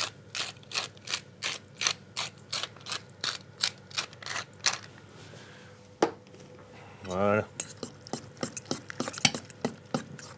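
Hand salt mill twisted back and forth, grinding in even rasping strokes about three times a second for some five seconds. After a pause, a spoon stirs eggplant dip in a stainless steel mixing bowl, clinking quickly against the metal.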